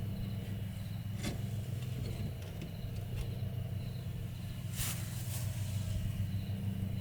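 A steady low hum, with a few faint knocks and a brief rustle about five seconds in.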